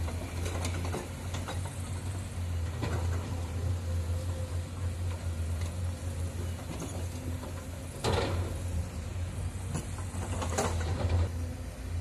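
Komatsu PC210-10 excavator's diesel engine running with a steady low hum as it works, with scattered clanks and scrapes of limestone rock against the bucket. There are two louder crashes of rock, about two-thirds of the way in and again near the end.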